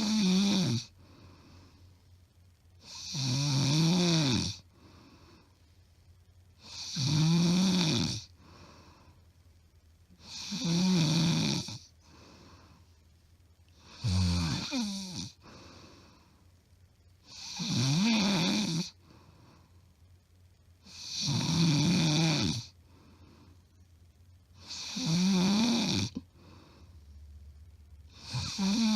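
A woman snoring loudly in her sleep, recorded close up: about eight loud snores, one every three and a half seconds, each about a second long with a rough pitch that rises and then falls, and quiet breathing between. The snoring keeps an even rhythm with no pauses, which the owner says is not sleep apnea, only loud snoring.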